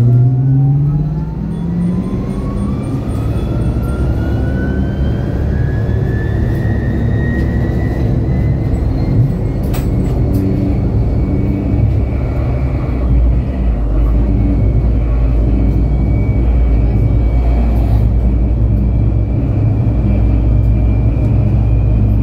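MAN Lion's City Hybrid city bus pulling away: the electric drive's whine rises in pitch over the first several seconds as the bus gains speed, then holds steady at cruising speed over a constant low rumble of the drivetrain and road.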